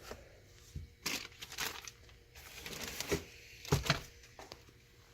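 Packaging wrap crinkling and crackling in irregular bursts as it is pulled off ceiling fan blades, with a few knocks from handling the blades.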